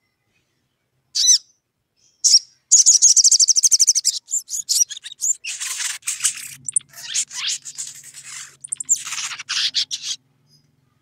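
Male olive-backed sunbird calling out to rivals: two sharp high chirps, then a fast high trill lasting about a second, followed by bursts of rapid chattering chirps that stop about a second before the end. A faint low hum runs underneath in the second half.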